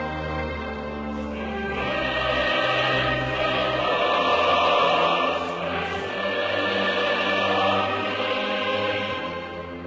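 Choral music with orchestral accompaniment, a choir holding long sung notes over strings; it swells fuller and louder about two seconds in and eases off near the end.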